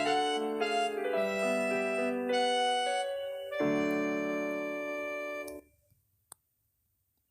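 Keyboard music: a short melody of held notes, closing on a sustained chord that stops about five and a half seconds in. A single faint click follows.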